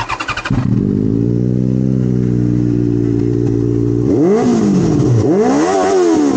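Sport motorcycle engine being started and caught, idling steadily for a few seconds, then revved in quick throttle blips from about four seconds in, each blip a rising then falling pitch.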